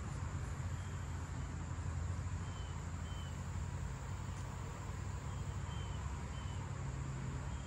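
Open-air park ambience: a steady low rumble with several short, faint bird chirps scattered through it.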